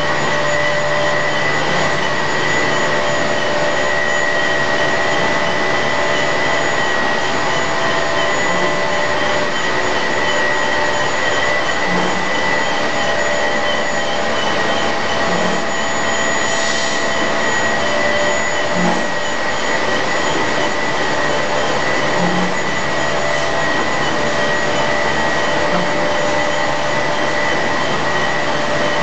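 Steady machinery noise of a running chemical plant, motors and pumps, with a constant high whine over a dense hiss. A faint low blip comes about every three and a half seconds.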